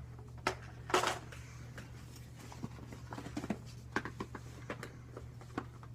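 Plastic tackle boxes being handled: a short rustle about a second in, then scattered light clicks and taps, over a steady low hum.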